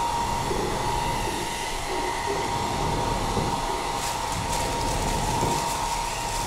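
A steady rumbling drone with one high tone held throughout, like a train's running noise, and faint crackles from about four seconds in.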